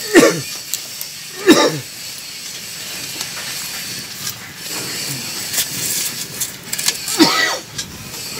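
Open wood fire hissing and crackling under a cooking pot. Three loud calls cut through it, each sliding steeply down in pitch: one just after the start, one about a second and a half in, and one near the end.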